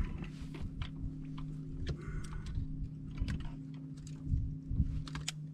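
Scattered light clicks and knocks of a bass being handled at a boat's livewell, over a steady low hum.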